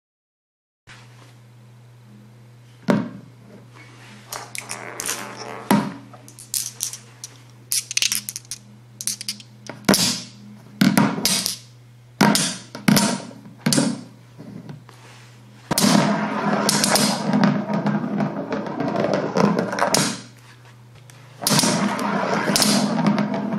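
Steel ball bearings clacking sharply as they snap onto a cylindrical rare-earth magnet in a magnetic accelerator, with repeated separate clicks. In the second half the balls roll and rattle continuously along a plastic bowl, over a low steady hum.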